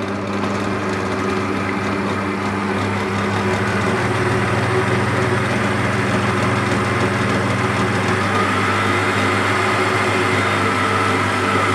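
Electric stand mixer motor running steadily with a dough hook, mixing flour, milk and moringa leaves into bread dough; a steady hum, with a higher whine joining about eight seconds in.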